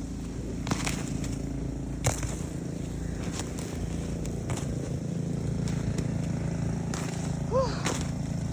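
A snow shovel scraping and knocking against hard, packed snow, several separate strikes over a steady low engine hum.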